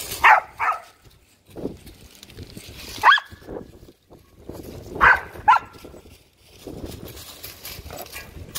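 A dog barking in short bursts while jumping at a swinging tetherball: two quick barks at the start, one about three seconds in, and two more about five seconds in.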